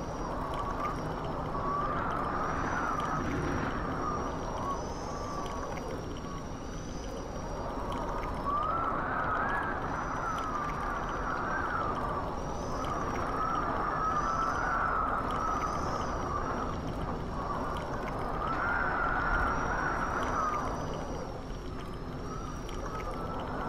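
Wind-blast sound effect for G-force: a continuous rush of air with a whistle that wavers up and down in pitch, swelling and easing every few seconds.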